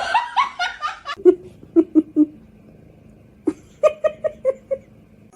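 High-pitched giggling in three runs of quick, short pulses of laughter, with a pause of about a second between the second and third runs.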